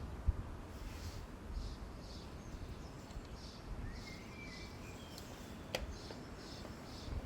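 Outdoor background noise: a low rumble like wind on the microphone, with small birds chirping repeatedly and one sharp click a little before six seconds in.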